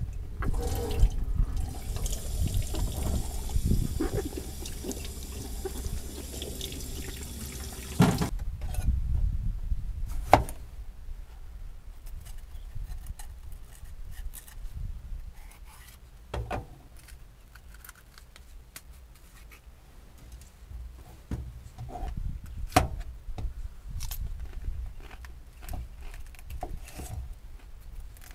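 Water running from a lever tap into a stainless steel sink for about eight seconds, then shut off suddenly. After that, a knife cutting red peppers on a wooden chopping board, with a few scattered sharp knocks of the blade on the board.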